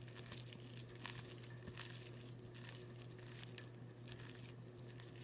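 Faint, irregular crinkling and tearing as hands stretch and work a small piece of slime that has been over-activated. A steady low hum sits underneath.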